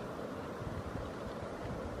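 Steady rushing of a waterfall: an even wash of falling water that does not change.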